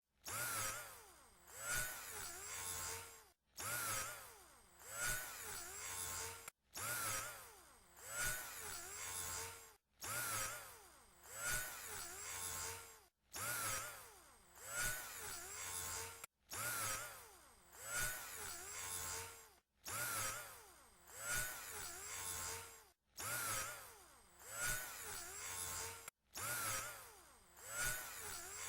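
Electric drill motor running in short, identical bursts about every three seconds. Each burst starts sharply, sags in speed and picks up again, then cuts off suddenly.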